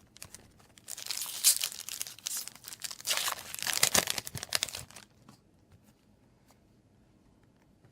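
Foil Yu-Gi-Oh booster pack wrapper being torn open and crinkled, from about a second in to about five seconds in, then near quiet.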